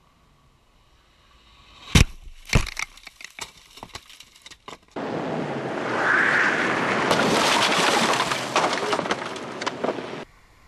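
A motorcycle crashing into the side of a sedan: two loud sharp impacts about half a second apart, then scattered clatter of breaking parts and debris. From about five seconds in comes a second, loud run of dense noise with cracks and breaking sounds through it, which cuts off suddenly.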